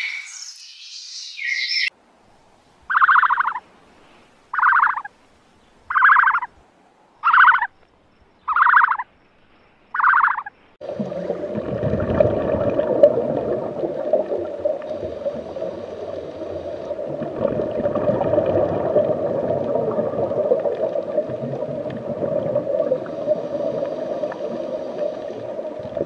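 Six short calls, evenly spaced about one and a half seconds apart, then a steady underwater rushing noise of moving water.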